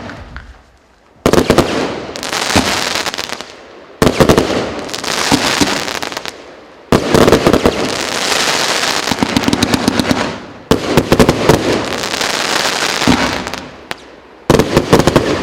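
Multi-shot firework cake firing in volleys: five times, about every three to four seconds, a quick string of sharp bangs sets off two to three seconds of dense crackling that fades out.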